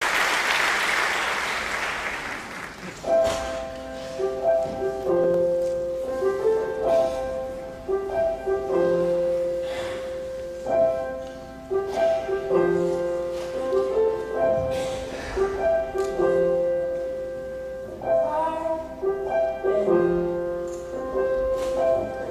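Audience applause fading out over the first three seconds, then a recorded song's solo piano introduction playing a repeating figure of notes and chords.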